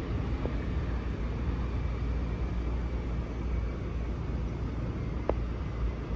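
Steady low rumble of vehicle noise, with two short clicks, one about half a second in and one near the end.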